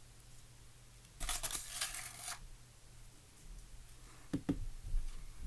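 Borax powder being shaken out of its container: a rustling, scratchy pour lasting about a second, then a couple of soft knocks near the end.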